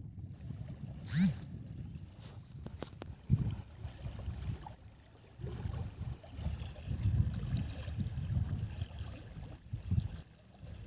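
A hooked fish being dragged out of the shallows and flopping on a muddy bank, with a few sharp thumps among uneven rumbling wind on the microphone.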